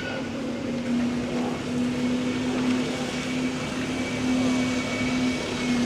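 A steady mechanical hum of one low pitch that starts abruptly and holds without change, over the general noise of a wet town street.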